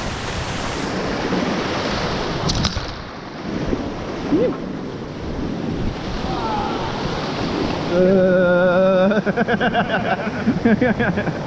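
Whitewater rushing around an open canoe as it runs a weir's rapids, with wind buffeting the microphone. About eight seconds in, a paddler lets out a long wavering yell, followed by a few quick whoops.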